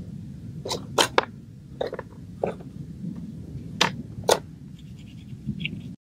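A series of sharp taps and clicks, about seven over a few seconds, as pieces of bark and small art materials are handled and set down in a cardboard tray, over a steady low rumble.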